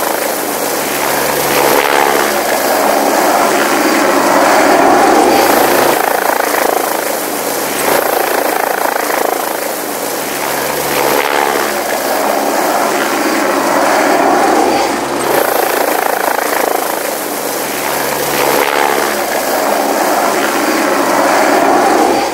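Helicopter in flight, heard from inside the cabin: a steady, loud rotor and turbine noise that swells and eases slightly every few seconds.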